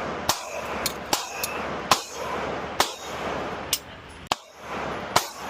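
About eight sharp metallic clicks and clanks at irregular intervals, over a steady background hiss.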